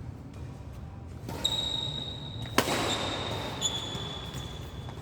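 Badminton play on a hall court: a sharp racket hit on the shuttlecock about halfway through, with high-pitched squeaks of shoes on the court floor.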